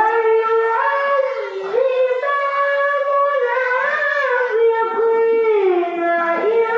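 A young boy's voice reciting the Quran in the melodic tilawah style through a microphone, in long unbroken phrases: held notes that slide and waver between pitches, dipping lower about five seconds in and then rising again.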